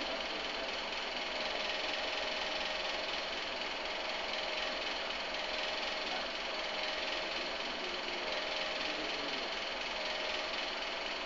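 Steady machine hum with an even hiss, unchanging throughout, with no distinct events.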